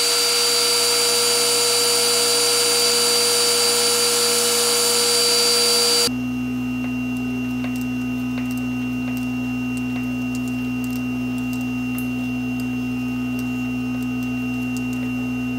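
Metal lathe running, spinning an aluminium bar while a drill bit in the tailstock chuck bores into its end: a loud, steady machine noise with a fixed whine. About six seconds in it cuts abruptly to a quieter steady hum with a few faint light clicks.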